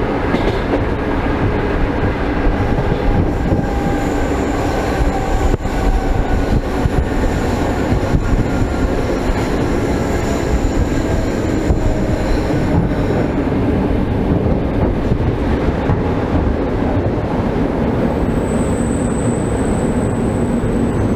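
Old commuter electric train running on the track, heard through an open vestibule window with no glass: a steady rumble of wheels and rushing air with occasional wheel clicks and faint slowly falling whines. A thin high wheel squeal starts near the end.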